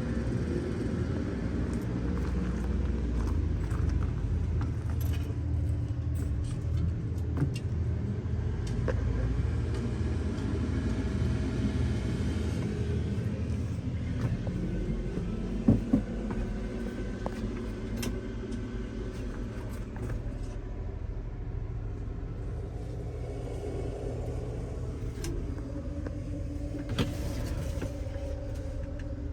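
New Holland B95 loader backhoe's diesel engine running steadily, with a few sharp clanks or knocks, loudest about halfway through.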